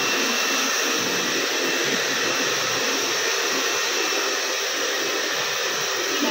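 Handheld electric hair dryer running steadily, blowing on a wet rabbit to dry its fur.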